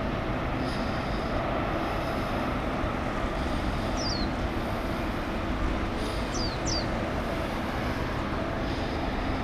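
Steady low rumble and hiss of distant shipyard and harbour machinery noise, without pause. A few short high chirps falling in pitch come through it, one about four seconds in and two more a couple of seconds later.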